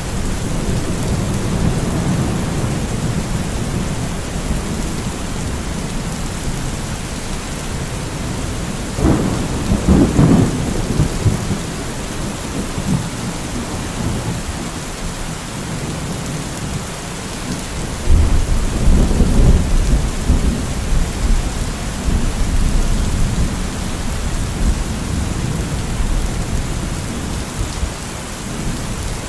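Steady heavy rain with thunder: one low rumble rolls through about nine seconds in, and a second, deeper one about eighteen seconds in.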